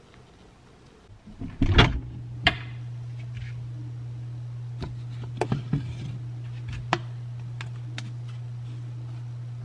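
Refrigerator door pulled open with a loud thump about two seconds in, followed by a steady low hum and scattered clicks and knocks as containers on the fridge shelves are handled.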